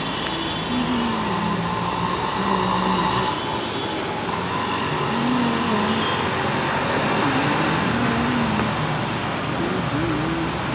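Steady street traffic noise from passing motor vehicles. Engine tones rise and fall in pitch now and then over a continuous roar.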